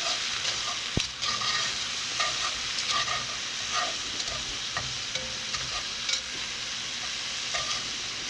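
Vegetables sizzling as they fry in a cast iron Dutch oven, with a metal utensil scraping and clinking against the pot as they are stirred; one sharp clink about a second in.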